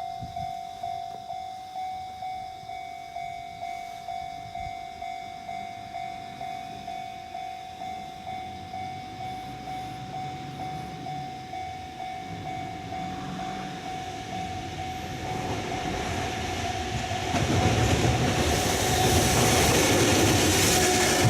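Japanese level-crossing warning bell ringing in evenly repeated strikes, about one and a half a second. From about fifteen seconds in, a freight train hauled by an EF65 DC electric locomotive comes up and grows louder, passing with rumble and wheel noise over the last few seconds as the bell keeps ringing.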